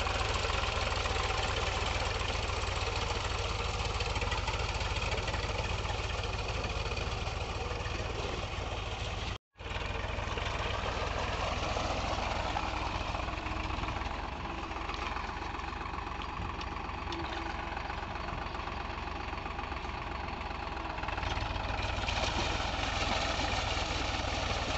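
Powertrac Euro 47 tractor's diesel engine running steadily under load as it drags a puddler and leveler through a flooded paddy field on half cage wheels. The sound cuts out for a split second about nine seconds in.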